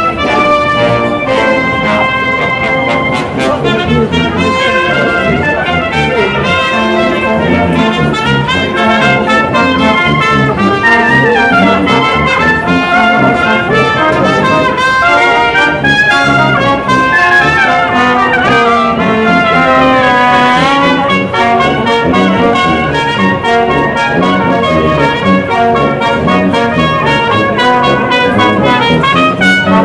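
A brass ensemble of trumpets, trombone and tuba playing a piece together, several melodic parts over a low tuba line.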